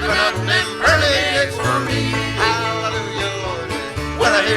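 Live country string band playing and singing, with voices over a steady bass line.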